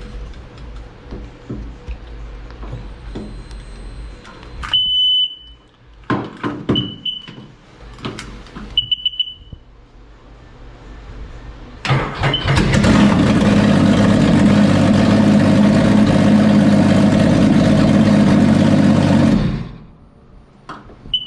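Three short high beeps from the Sea-Doo's warning speaker, then the supercharged Sea-Doo RXP 215 engine cranks, starts about twelve seconds in, runs steadily for about seven seconds and shuts off abruptly. A few clunks come between the beeps.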